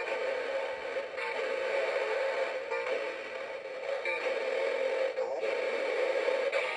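Big Mouth Billy Bass singing fish's small built-in speaker playing its Christmas country song as a steady, tinny, distorted drone with little clear tune, the sign of low batteries.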